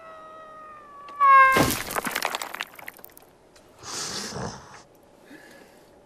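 Cartoon sound effects: a held cry like a wail or meow, then a higher cry that drops in pitch. A loud crash follows, with about a second of clattering, and later a shorter, softer rush of noise.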